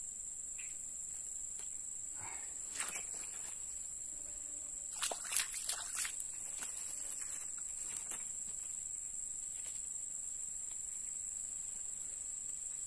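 Steady high-pitched drone of insects in the surrounding vegetation, with a short run of clicks and rustling about halfway through.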